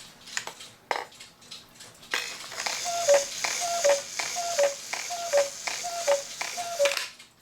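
E. Schmeckenbecher cuckoo clock calling cuckoo six times from its bellows and whistles, each call a two-note falling pair over a hiss of air, its bellows tops weighted with a quarter each so they sound the whistles. A few clicks of the movement come before the calls.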